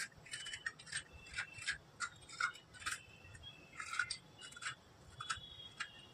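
Vegetable peeler scraping the thin brown skin off fresh coconut meat in short, irregular strokes, faint.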